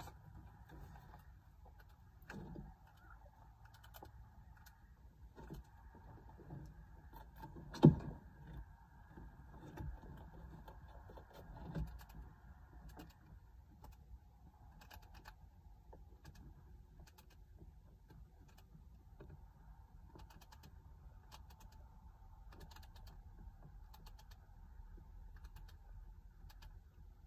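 Quiet henhouse with hens settled on their roost: a faint low hum, scattered small taps and shuffles, one sharp thump about eight seconds in and a smaller knock near twelve seconds.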